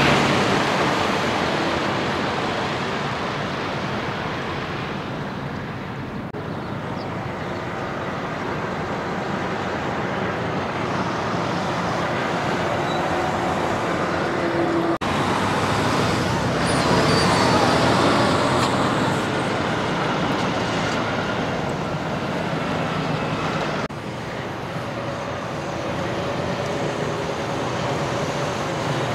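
Road traffic: semi trucks and other vehicles passing on a street, their tyre and engine noise swelling and fading as each goes by. The sound breaks off and jumps twice.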